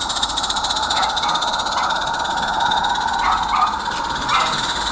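16mm-scale live-steam garden railway locomotive running past with its carriages, chuffing in a fast even beat over a steady hiss of steam.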